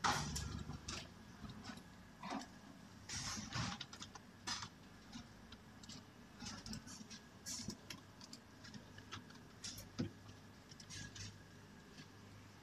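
Scattered, irregular clicks and taps of a computer mouse and keyboard being worked, faint, over a low steady hum.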